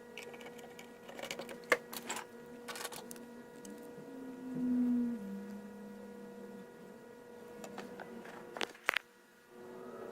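Steady electrical hum with scattered sharp clicks and taps of tools and small parts being handled at an electronics repair bench; a low tone swells and steps down in pitch around the middle.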